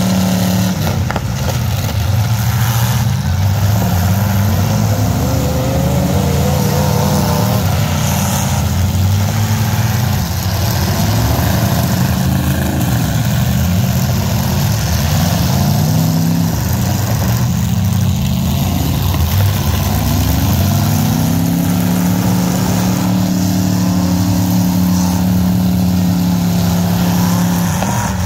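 Demolition-derby pickup truck engines running hard at high revs, the pitch climbing several times as they accelerate and then holding high for long stretches.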